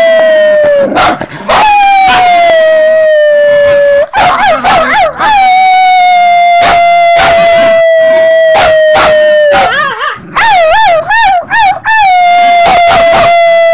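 A dog howling: long drawn-out notes that each slide slowly down in pitch, broken twice by runs of short, wavering yips.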